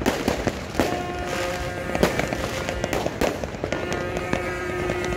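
New Year's fireworks going off as a string of sharp bangs and crackles at irregular intervals, with music playing underneath.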